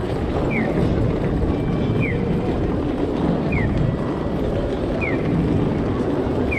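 Pedestrian crossing audio signal sounding a short, high, falling electronic chirp about every second and a half, which marks the walk phase. Under it is a steady low rumble of busy street noise.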